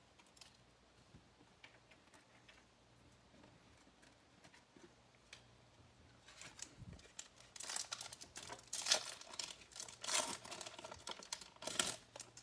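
A baseller card pack's foil wrapper being torn open and crinkled, a run of rustling bursts in the second half; before that only faint clicks of cards being handled.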